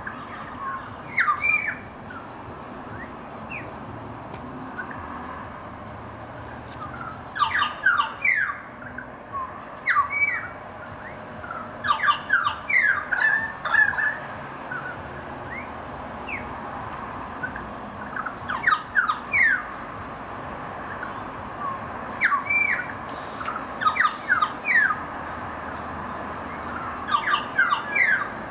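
A family group of currawongs calling together: clusters of short notes that slide up and down in pitch. The calls come in several outbursts a few seconds apart, over steady background noise.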